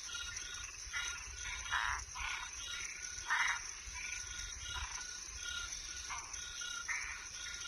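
Night chorus of frogs and tree frogs: short pitched calls repeating about twice a second over a steady high trill, with louder rasping calls now and then, the loudest about three and a half seconds in.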